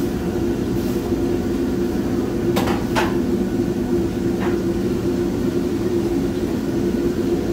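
Steady rumble of a commercial kitchen's exhaust hood and gas wok burners, with three sharp metal clanks of a utensil against a wok about two and a half, three and four and a half seconds in.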